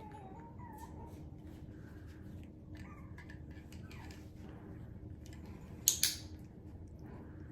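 Havanese puppy giving a faint, wavering high whine, with soft scattered clicks, then a sharp double clatter about six seconds in.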